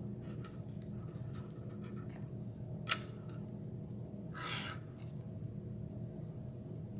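Plastic beads and plastic lacing cord being handled during beading: a single sharp click about three seconds in, then a brief scratchy rustle of cord pulled through the beads about a second and a half later, with a few faint ticks over a low steady hum.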